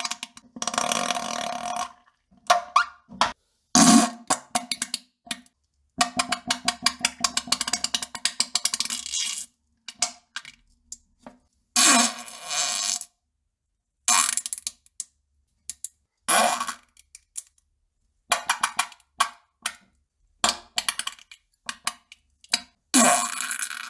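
A run of fart sounds, about a dozen separate blasts split by dead silence: some short, others long sputtering rattles of rapid pulses, the longest lasting several seconds.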